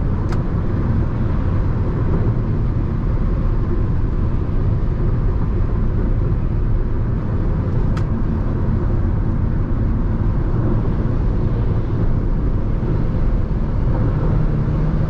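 Steady wind and road noise inside the cabin of a Jeep Renegade T270 cruising at highway speed: air rushing in from outside, which the driver finds very loud and cannot explain. Two brief clicks, one right at the start and one about eight seconds in.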